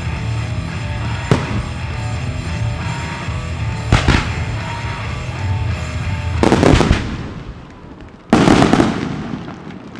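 Fireworks bursting over background music: sharp bangs about a second in and again about four seconds in, then two louder, longer bursts near the end.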